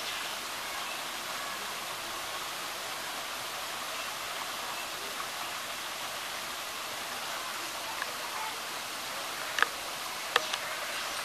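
Steady rush of a shower spray pouring and splashing into a pool, with two sharp clicks near the end.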